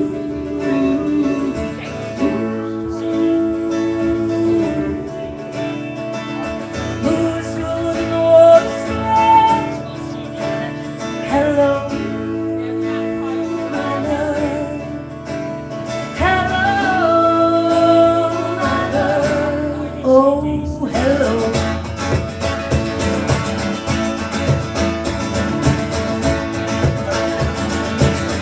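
Live song with acoustic guitar and singing. About two-thirds of the way through, a steady, driving guitar strum comes in and the sound gets fuller.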